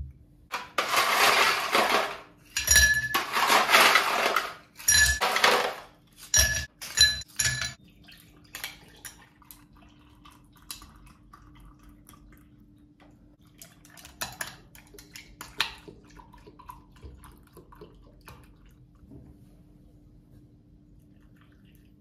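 Ice cubes tumbling into drinking glasses, clattering and clinking against the glass in three loud runs over the first six seconds, then a few single clinks. After that, only faint pouring and handling sounds as milk goes in.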